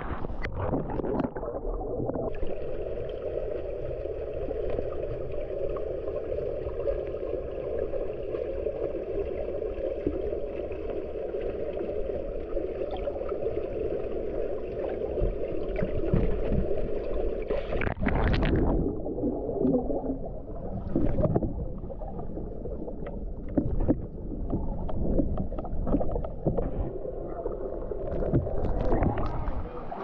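Flowing water heard through a submerged microphone: a steady, muffled rushing. A little past halfway it turns choppier, with splashing and sloshing as the microphone moves at the water's surface.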